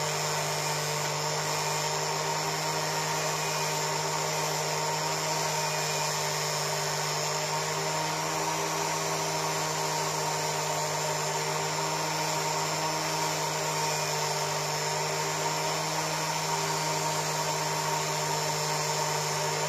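Rotary tool on a flexible shaft running steadily at constant speed, with a steady motor hum. A small brass wire brush in it scrubs the aluminium engine casing of a Suzuki FZ50 to clean and brighten the metal.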